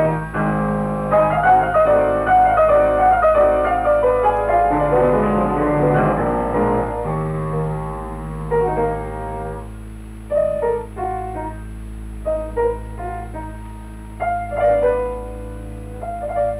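Piano music: a busy passage of quick notes for the first several seconds, then sparser phrases of a few notes separated by short pauses.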